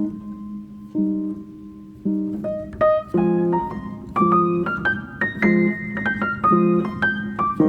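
Piano music: chords struck about once a second, with a melody of single notes climbing higher in the middle.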